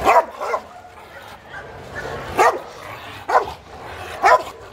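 A leashed Rottweiler barking aggressively in a guard-dog display, teeth bared: five barks, two in quick succession at the start, then three about a second apart.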